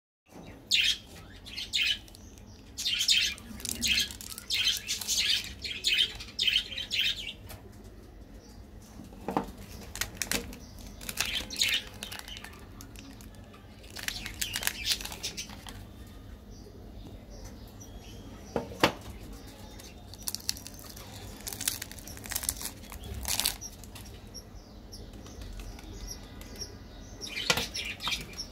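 Plastic candy wrappers crinkling and tearing as they are opened by hand, in bursts of rustling with pauses between, and a few sharp clicks.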